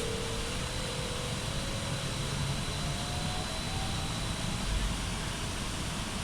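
Inside a BKM 433 trolleybus under way: the electric traction drive whines in a slowly rising pitch as it gathers speed, over steady road rumble, with a thin high whine held constant.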